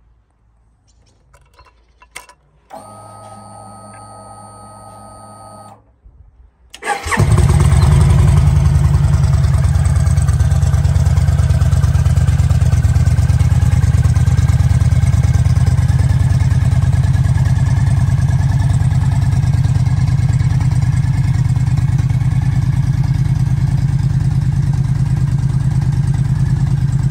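Yamaha XVS 950 Midnight Star's air-cooled V-twin being started. A click and a steady hum for about three seconds, then the starter turns it over briefly and the engine catches about seven seconds in, settling into a steady, loud idle.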